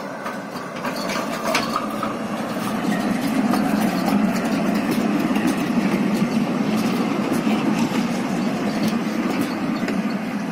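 Düwag GT8 articulated tram rolling past close by under its own power: a steady rumble of wheels on rail that builds over the first few seconds and then holds, with scattered sharp clicks and ticks.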